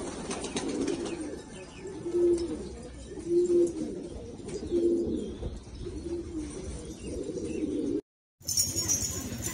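Domestic pigeon cooing in courtship display, a low coo repeated about every second and a quarter, six or so times. The cooing cuts off suddenly about eight seconds in.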